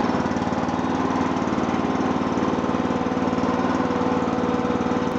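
Mini excavator's engine running steadily at idle, an even, unchanging pulsing drone.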